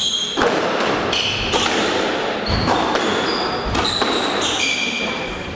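Squash rally: the rubber ball smacking off racquets and walls about once a second, with court shoes squeaking in short high chirps on the wooden floor.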